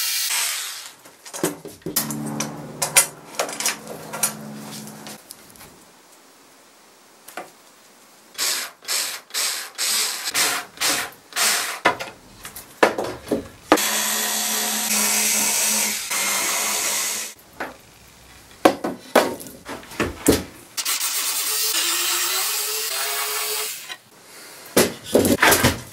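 Cordless drill-driver running in short bursts of one to three seconds, backing screws out of brass strips set in wood. Between runs come clicks and knocks of screws and handling.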